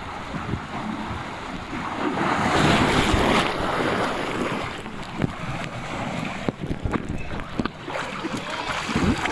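Water rushing down the end of a water slide, rising to a loud splash about three seconds in as the rider ploughs into the splash pool, then water sloshing with knocks of the camera being handled.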